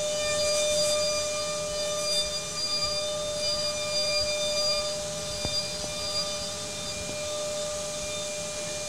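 High-speed spindle of a DATRON M8 Cube CNC milling machine running steadily with a high-pitched whine as a long insert cutter rough-machines the part. A couple of faint ticks come about five and a half seconds in.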